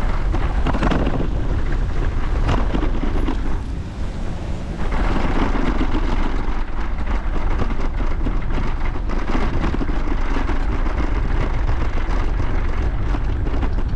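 Wind rushing over the microphone of a camera carried on a moving bicycle, a dense steady rumble with street and vehicle noise beneath. It eases briefly about four seconds in, then picks up again.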